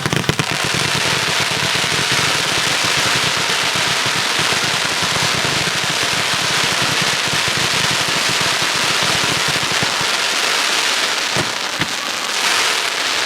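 Aerial fireworks crackling: a dense, continuous shower of tiny pops and crackles, easing off a little about ten seconds in, with a couple of sharper single cracks near the end.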